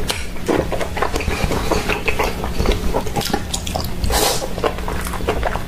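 Wet chewing, sucking and lip-smacking of someone eating sauced seafood, including octopus tentacles, with many irregular small clicks and squelches.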